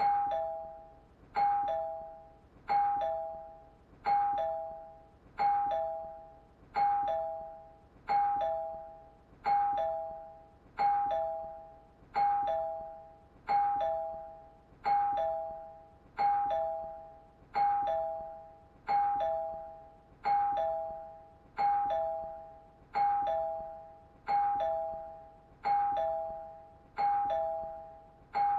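Doorbell chime ringing over and over in a steady loop, a two-note ding-dong (a higher note, then a lower one) struck about once every one and a half seconds, each note fading before the next ring.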